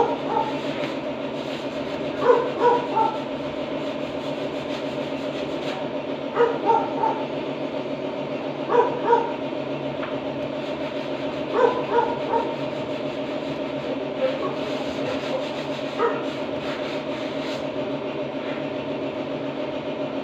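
A dog barking in short runs of two or three barks every few seconds, over a steady hum.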